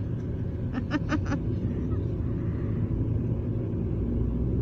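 Steady low rumble of a moving car heard from inside the cabin, road and engine noise. A quick run of four short voice sounds comes about a second in.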